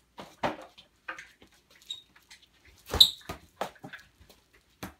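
Short taps and scuffs of feet and a soccer ball on a wooden floor, with a few brief high squeaks, likely sneakers on the boards. The loudest knock comes about three seconds in, as the ball is flicked up off the feet and caught.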